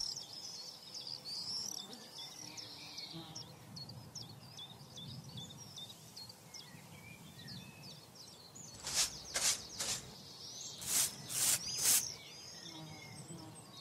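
Faint outdoor ambience with birds chirping. About nine seconds in and again about eleven seconds in come two groups of three short scraping strokes, louder than the birds.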